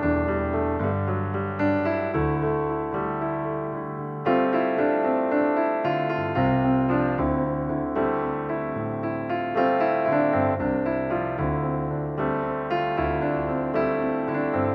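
Background piano music: a steady run of chords and melody notes over a bass line.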